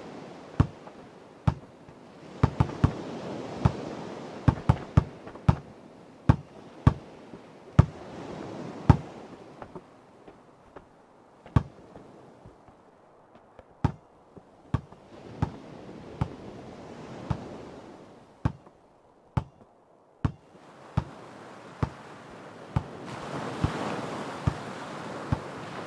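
A basketball bouncing again and again at an uneven pace, sometimes in quick runs, sometimes with gaps, over the wash of ocean surf that swells and fades and grows loudest near the end.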